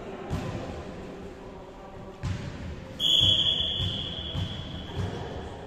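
Referee's whistle blown once about three seconds in, a single long, steady high blast that rings on in the hall: the signal for the serve. Before it, a couple of dull thuds of a volleyball bouncing on the court floor.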